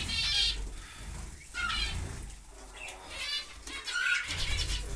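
Small aviary birds, parrots among them, chirping and chattering in short high bursts, several times over.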